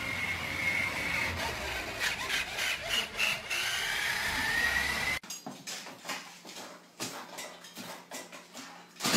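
Small electric motor of a toy ride-on truck whining as it drives, its pitch dipping and then rising. It cuts off suddenly about five seconds in, leaving a few faint knocks and scrapes.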